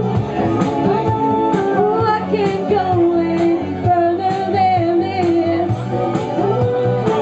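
Karaoke: a woman sings into a microphone over a pop backing track with a steady beat, her voice carrying a wavering melody.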